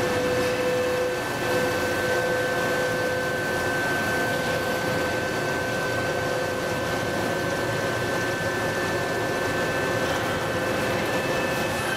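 Hydraulic hot-forging press running: a steady mechanical drone with a constant high whine over it and no distinct blows.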